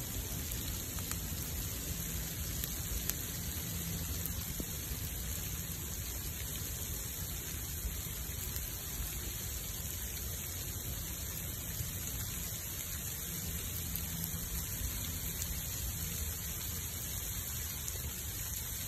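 Freezing rain falling around a burning wood bonfire: a steady hiss, with a few faint crackles from the fire.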